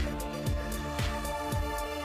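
Background music with a steady beat: a low kick drum about twice a second under sustained notes.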